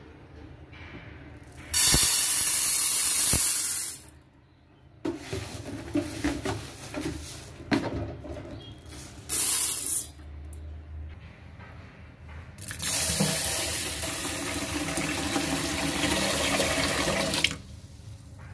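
Rice being washed in a pot under a kitchen tap. The tap runs hard for about two seconds, then there is swishing water with small knocks of the pot and grains. A short second burst of tap water follows, and the tap runs again for about five seconds near the end.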